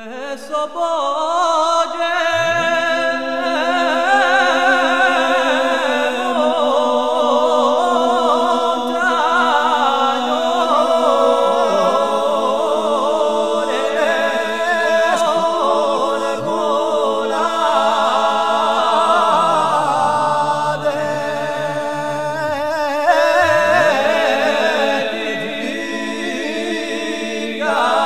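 A cappella voices singing a slow Corsican lament in harmony: a low held note sits under wavering, ornamented melody lines.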